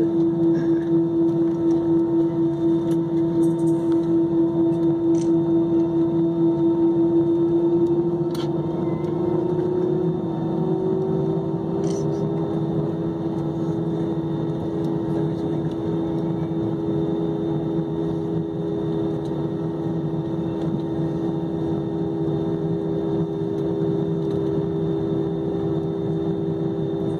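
Airliner jet engines at taxi power, heard inside the cabin while the plane taxis after landing. It is a steady hum with a tone that pulses for the first several seconds. About ten seconds in, a second tone rises a little as the engine speed changes, then holds.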